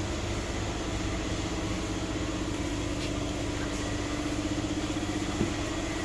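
An engine idling steadily, a low even rumble with a steady hum on top, with a faint tick about five and a half seconds in.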